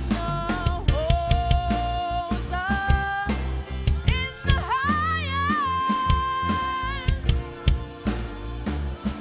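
Live worship music: a woman's solo voice singing held notes, with a sliding vocal run about four seconds in, over a drum kit played with sticks and a sustained keyboard accompaniment.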